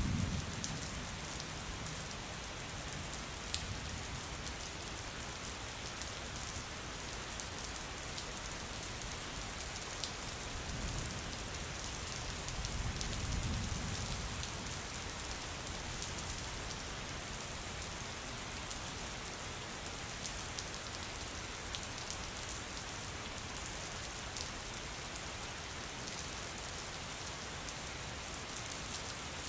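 Steady rain falling, with scattered sharper drop taps. A low rumble sounds at the very start and another swells and fades about 13 seconds in.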